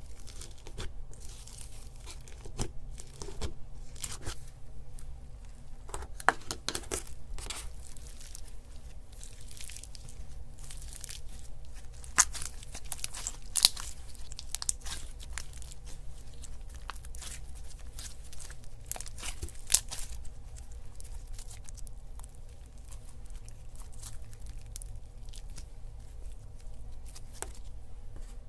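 Slime being squished and stretched by hand, giving dense irregular crackling and clicking with a few sharper pops.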